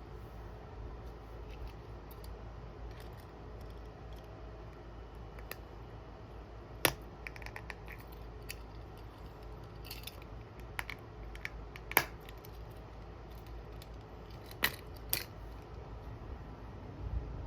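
Handling of small craft items for sticker and keychain decorating: sparse small clicks and taps, with sharper clicks about seven and twelve seconds in and two more close together near fifteen seconds, over a faint steady room hum.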